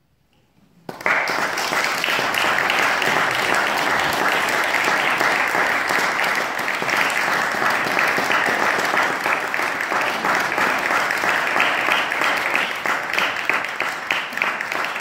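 Audience applauding: after a moment of near silence, dense clapping starts suddenly about a second in and carries on steadily.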